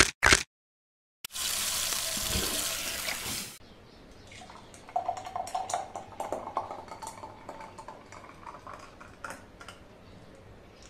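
A loud, even rushing noise starts abruptly about a second in and stops abruptly two seconds later. Then thick apple milkshake pours from a blender jar into a glass with soft, irregular glugs and plops that trail off towards the end.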